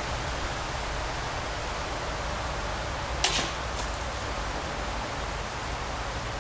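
A water-filled plastic bottle struck by a shot a little over three seconds in: one sharp crack, then a fainter snap about half a second later, over a steady outdoor hiss.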